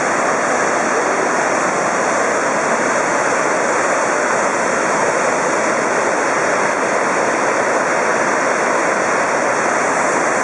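Steady, unbroken rush of Victoria Falls, a huge curtain of water plunging into its gorge.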